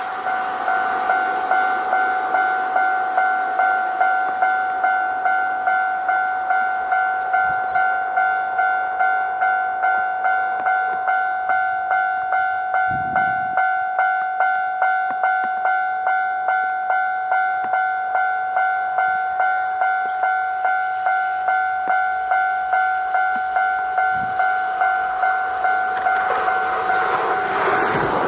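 Japanese railway level crossing's electronic warning bell ringing steadily at about two strikes a second. Near the end the bell stops and a train's running noise swells in.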